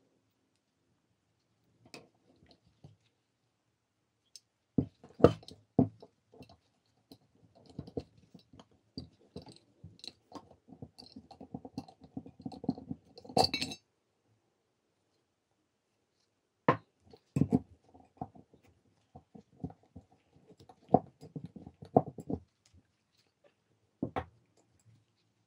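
Old Dacia alternator being taken apart by hand: scattered metal clinks, scrapes and knocks as the brush holder, end housing and rotor are handled. The clatter comes in bursts, about two seconds in, from about five to fourteen seconds, and again from about seventeen to twenty-two seconds, with a single knock near the end.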